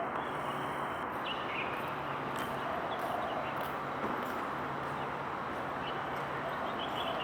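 Steady outdoor background noise with a faint low hum that comes and goes, and a few faint short high chirps.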